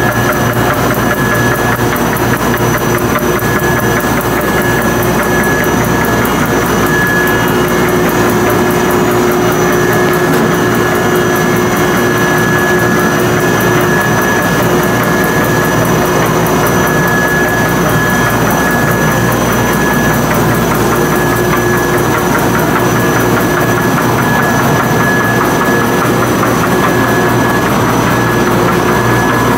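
Gonderflex flexographic narrow-web label press running: a loud, steady mechanical drone with a constant high whine, rollers and web turning at an even speed.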